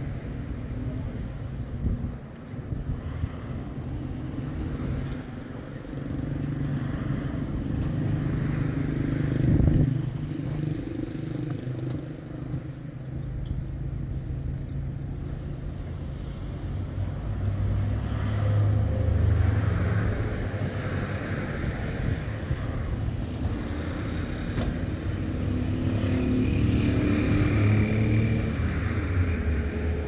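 A car driving: engine running under road noise, its pitch shifting up and down with changing speed.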